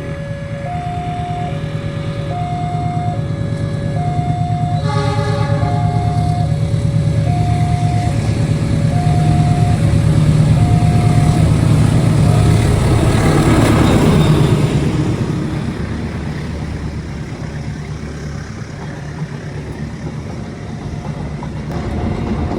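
Railway level-crossing warning alarm alternating between two steady tones as a train passes. The train's horn blows briefly about five seconds in, then the rumble of the train builds, peaks, and fades away.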